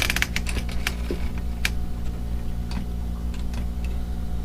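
Old typewriter keys striking: a quick run of keystrokes at the start, then a few single clacks spaced out, over a steady low hum.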